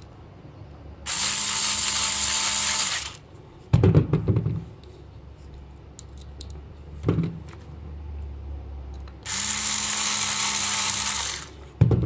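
Cordless electric precision screwdriver whirring in two runs of about two seconds each, driving screws in a plastic toy's body. Plastic clicks and knocks from the toy being handled come between the runs.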